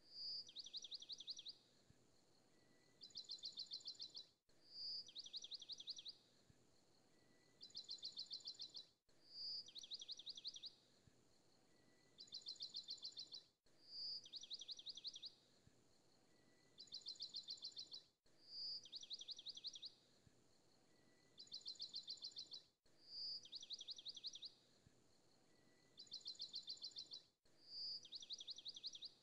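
Faint looped recording of bird chirps: a single high peep followed by two quick trills of rapid chirps, the same pattern repeating identically about every four and a half seconds.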